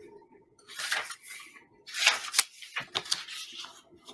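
A book being handled: three short bursts of paper rustling, about a second apart, with sharp light clicks.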